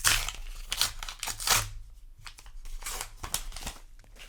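Foil booster pack wrapper of trading cards being torn open and crinkled: a quick run of crackly rips in the first couple of seconds, then more crinkling a little later.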